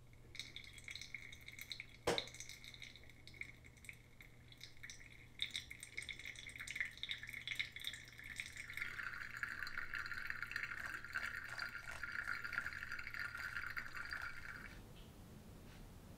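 A thin stream of hot water from a gooseneck kettle pouring onto coffee grounds in a paper filter dripper, a steady trickle with scattered small ticks, growing fuller about halfway through and stopping about a second before the end. A single sharp click about two seconds in.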